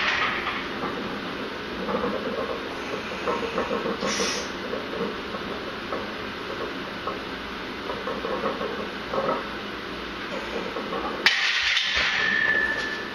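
Heavy barbell bench press in a power rack: hissing forced breaths and straining through the reps. A single sharp clank comes near the end, followed by a hiss.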